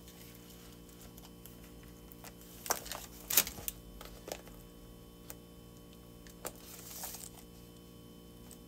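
A few small, sharp metal clicks and taps as a bag strap's clasp is hooked onto the ring of a handbag, with light handling rustle, over a faint steady hum.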